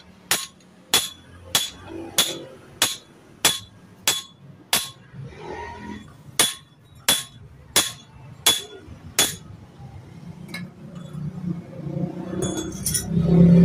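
Hammer striking metal in steady, ringing blows, about one every 0.6 s, with a short pause about five seconds in: the kind of hammering used to drive a steering head bearing race out or in. In the last few seconds come lighter clinks of metal parts and tools, then a louder metallic clatter.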